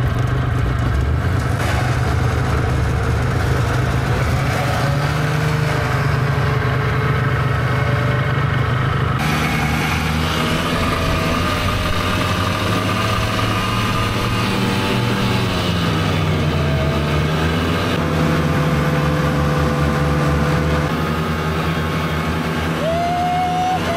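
Motor vehicle engine running steadily, its pitch dipping and rising a few times as the speed changes. The sound changes abruptly about nine seconds in.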